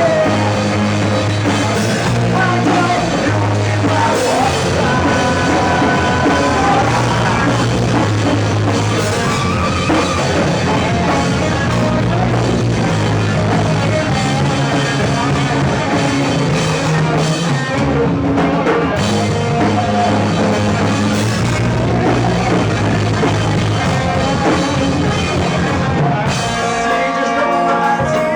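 Rock band playing live: drum kit, bass and guitars in a passage without clear vocals. The bass drops out briefly near the end.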